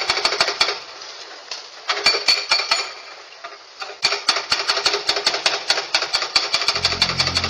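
Hydraulic breaker on an excavator hammering at concrete, a rapid run of about ten blows a second that stops and starts in three runs. A low engine hum comes in near the end.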